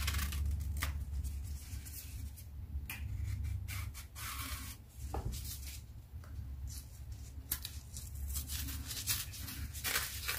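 A knife cutting and scraping through the tough skin of green plantains, with the peel tearing away in short bursts of scrapes and snaps, over a steady low hum.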